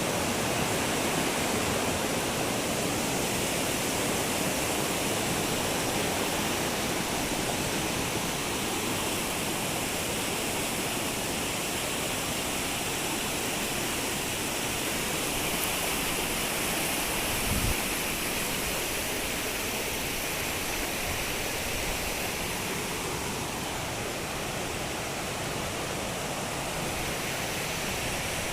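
Rushing water: a steady, unbroken roar of flowing water, with one brief low thump about two-thirds of the way through.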